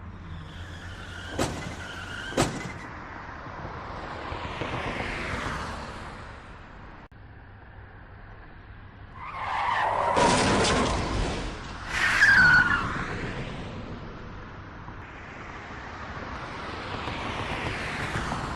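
Car crash sound effects: traffic noise of cars passing, two sharp knocks early on, then a loud skid with tyres squealing, followed by another car approaching.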